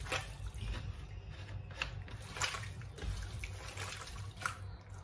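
Water and liquid splashing and sloshing as raw chicken skin is washed and kneaded by hand, with a few sharper wet splashes.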